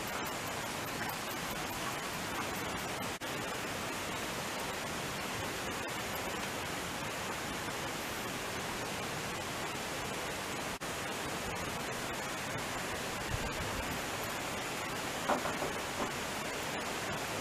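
Steady, even outdoor hiss with no pitch to it, with a few soft taps about fifteen seconds in.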